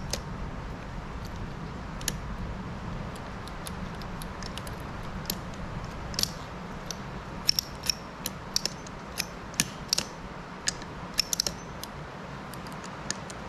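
Irregular light metallic clicks and ticks from a Cat D6B diesel injection pump's control rack and linkage being worked by hand, just freed after being stuck from gummed-up fuel. The clicks come more often in the second half, over a steady low hum.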